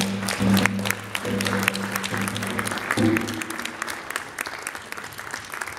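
Audience applauding, a dense patter of hand claps that thins out and grows quieter. A low steady tone sounds under the first half and stops about three seconds in.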